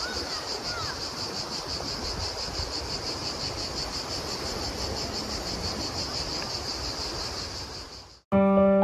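Həkəri river water rushing over a stony bed, with insects trilling in a fast, even pulsing rhythm high above it. Near the end it fades out and piano music begins.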